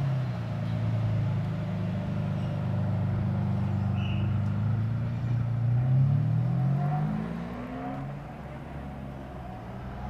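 Ferrari 599 Mansory Stallone's supercharged V12, through its Mansory sport exhaust, running at low revs as the car moves off. About halfway through it accelerates with a rising note, then fades as the car draws away.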